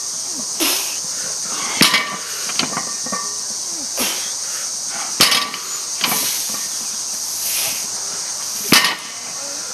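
A 315 lb barbell touches down on a rubber mat between deadlift reps, a sharp clank of the plates three times, about three and a half seconds apart. A steady high insect drone runs underneath.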